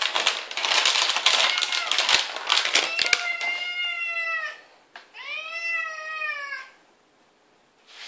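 A plastic kibble bag crinkling and rustling as it is handled, then a tabby cat giving two long meows, the second rising and then falling: a hungry cat begging for food.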